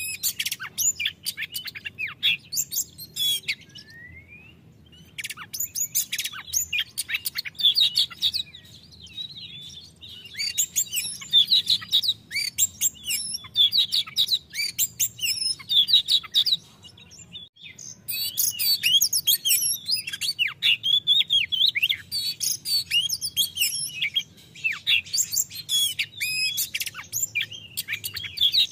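Oriental magpie-robin singing a loud, full 'ngeplong' song of rapid, varied whistled and chattering phrases. The song breaks off briefly about four seconds in and again around the middle.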